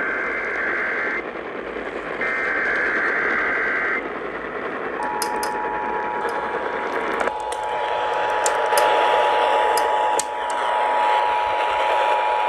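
Emergency Alert System test signal received over a radio. First come two roughly one-second bursts of the screeching SAME digital header tones. About five seconds in, the two-tone EAS attention signal (853 and 960 Hz) starts and holds steady. Receiver hiss and crackles of static run underneath.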